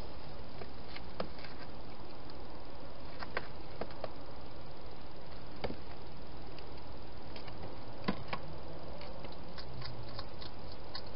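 Wild hedgehogs moving about a plastic feeding station: scattered sharp clicks and taps over a steady hiss, then a run of small quick ticks near the end as one hedgehog starts eating from the bowls.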